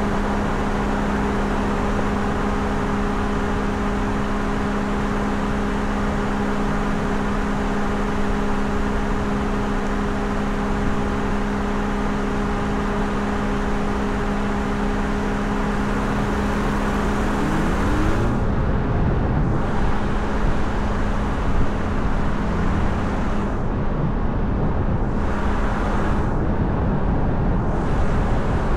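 Car driving, heard from an action camera mounted on the hood with wind-reduction audio: steady road and wind noise under a steady engine hum. About two-thirds of the way in there is a brief rising tone, and the hum changes.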